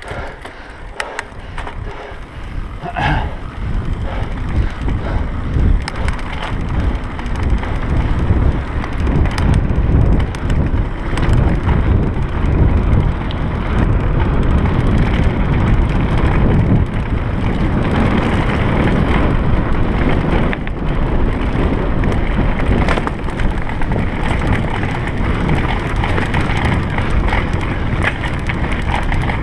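Mountain bike rolling fast over a rough dirt trail, recorded by a handlebar-mounted camera: tyre noise, rattling of the bike and wind buffeting the microphone, building up over the first few seconds as speed picks up and then running steadily.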